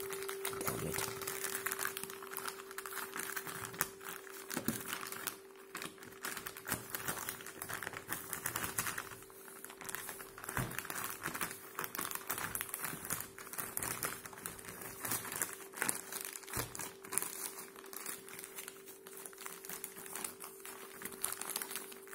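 Black plastic mailing bag being crinkled and crumpled by one hand as it is pressed and pulled at to get it open, a continuous stream of small crackles. A steady faint hum runs underneath.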